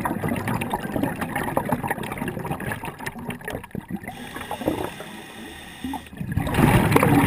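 Underwater sound of a scuba diver's exhaled bubbles, gurgling and crackling. It eases off for about two seconds partway through, then a fresh burst of bubbles starts about six seconds in.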